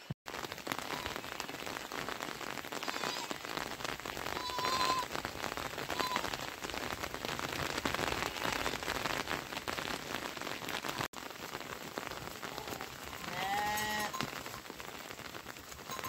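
Steady rain falling on the ground and vegetation, with a few short animal calls over it, including a clear bleat from the goat and sheep herd near the end.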